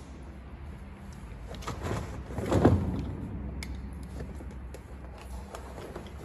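A knife cutting into a stiff polyethylene (PE) lagging sheet, the plastic sheet scraping and flexing as it is handled; the loudest scrape comes about two and a half seconds in, with a few light ticks afterwards.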